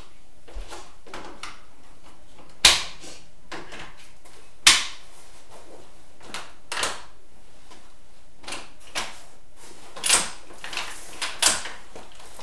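Plastic car seat adapters clicking into place on an iCandy Strawberry 2 pushchair frame, two loud clicks in the first five seconds, then a quick run of clicks and knocks near the end as the frame's joints fold.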